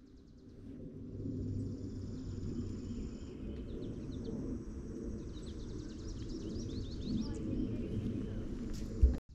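Small birds trilling and chirping high over a low, steady background rumble. The high trills break off briefly about three seconds in, and a run of quick sweeping chirps follows later.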